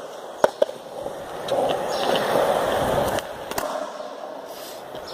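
Skateboard wheels rolling on a concrete court, with sharp clacks of the board hitting the ground as a trick is popped and landed. There are two quick clacks a little under a second in, a louder rolling stretch, and two loud clacks a little after the three-second mark.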